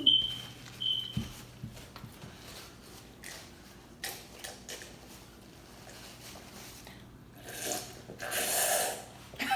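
Close chewing and mouth sounds of people eating pizza and chicken wings, with scattered soft smacks and clicks. There are two short high squeaks in the first second, and a louder noisy stretch comes near the end.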